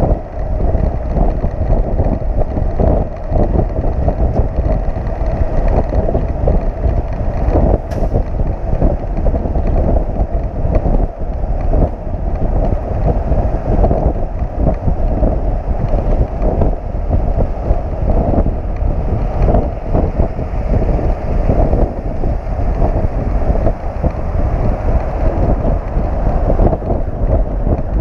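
Wind buffeting the microphone over steady road and drivetrain noise from a flatbed tow truck driving on a highway.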